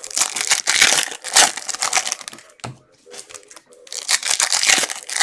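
Trading cards and their plastic wrapping handled and shuffled, crinkling and rustling with many small clicks in two bouts: one for about two and a half seconds, another starting about four seconds in.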